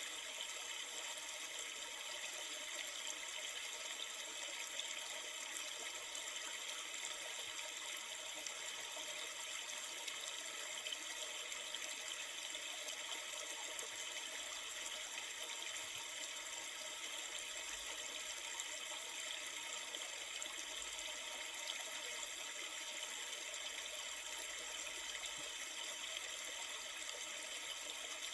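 River water flowing: a steady, unbroken rush.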